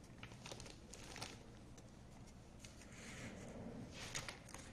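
Faint rustling and scattered light clicks of handling in a small room.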